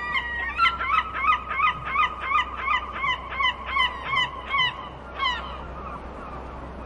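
Gulls calling: a fast series of short, yelping notes, about three a second, for some four seconds, then one more call and a quieter stretch.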